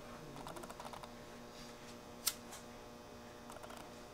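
Faint handling sounds of fingers working serving thread while tying nocking points on a compound bowstring, with one sharp click about two seconds in and a faint steady hum underneath.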